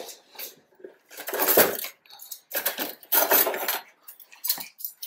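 Dishes and cutlery clinking and clattering in several short, irregular bursts.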